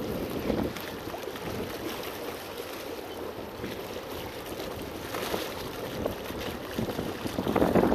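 Wind buffeting the microphone over lapping water, with a stronger gust near the end.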